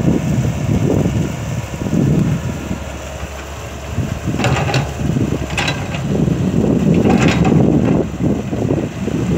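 Kobelco excavator working: the engine runs with a low rumble that rises and falls under load, and three short bursts of high-pitched clatter come about halfway through.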